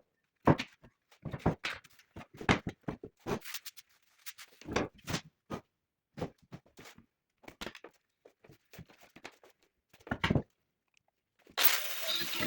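Irregular knocks, clicks and clunks of metal parts and tools being handled on a workbench. About a second before the end, a loud, harsh rushing noise starts abruptly.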